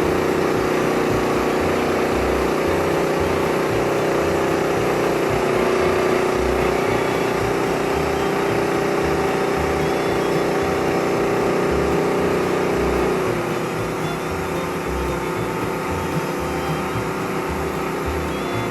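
Wood-Mizer LT15START portable band sawmill running under load, its engine and band blade cutting a thin slab off a beam with a steady drone. About two-thirds of the way through, the sound drops a little and its main tone steps lower.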